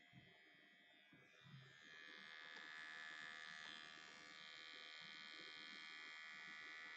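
Electric microneedling pen (dermapen) running: a faint, steady motor buzz that gets a little louder about two seconds in.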